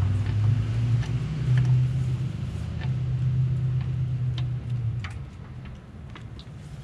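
Another vehicle's engine running close by, a steady low hum that fades out about five seconds in, with scattered light clicks over it.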